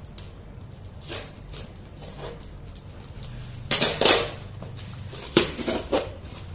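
Packing tape being ripped off a cardboard box and its wrapping torn away: a few short tearing rasps, the loudest about four seconds in, then two more near the end.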